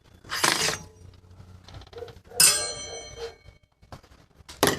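Metal tools and bike parts being handled and set down on a workbench: a dull knock, then a ringing metallic clang about halfway through, and another sharp knock near the end.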